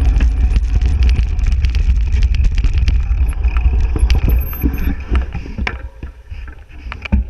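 Mountain bike clattering and rattling over a rough off-road track at speed, with wind buffeting the microphone as a heavy low rumble. Both ease off about six seconds in.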